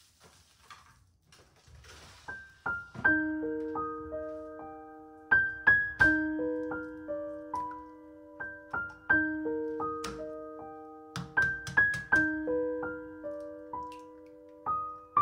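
Background music: a gentle piano melody that begins about two seconds in and repeats a short phrase about every three seconds, with faint rustling before it starts.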